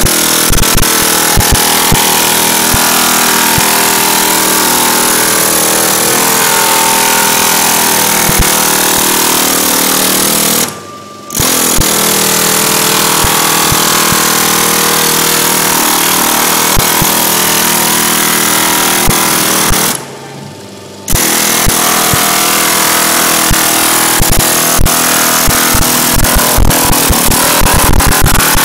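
Pneumatic air hammer with a ball-nosed tip hammering bronze sheet in a loud, rapid, continuous rattle, shaping its raised ridges in repoussé. The hammer stops twice for about a second.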